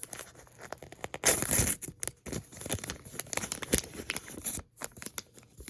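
Packaging being torn open and crinkled by hand, with a longer tear about a second and a half in, among scattered crackles and clicks.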